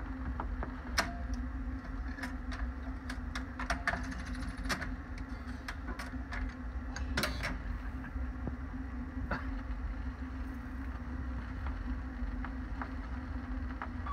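Seeburg SS-160 jukebox's record changer mechanism cycling at the end of a record: a steady motor hum with scattered sharp clicks and clunks as the record is swapped.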